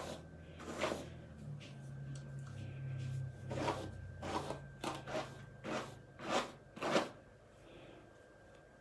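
A paddle brush dragged through a curly synthetic-style wig: about seven short brushing swishes, one early and the rest coming in quick succession through the middle.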